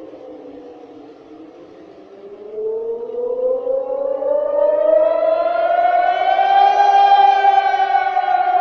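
Civil defence air-raid siren sounding a test wail. Its pitch sinks to a low point, then climbs slowly for several seconds, getting louder as it goes, and starts to fall again near the end.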